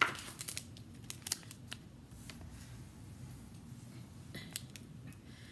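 Faint crinkling and clicking of a foil-wrapped biscuit packet being handled, with a few crackles in the first two seconds and again about four and a half seconds in.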